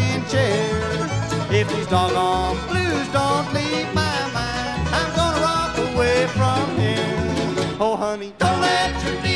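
Live bluegrass band playing an instrumental break, with banjo and guitar under a lead line that slides between notes. The sound drops out for an instant near the end.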